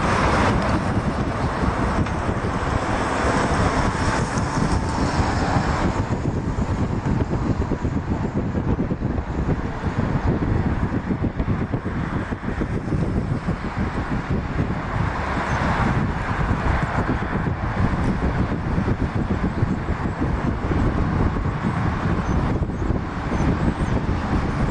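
Steady low rumble of road traffic mixed with the diesel locomotives of an approaching freight train.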